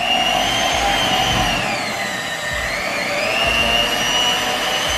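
Electric hand mixer running, its twin beaters turning in thick cookie dough in a stainless steel bowl. The motor whine is steady, dips in pitch about two seconds in and rises back a second later.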